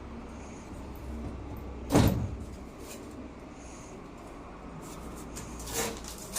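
A single loud thump about two seconds in, with a softer click near the end, over a steady low hum.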